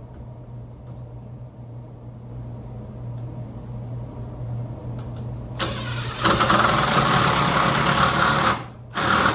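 A power drill runs hard for about three seconds, starting a little past halfway in, over a steady low hum, and starts again briefly near the end.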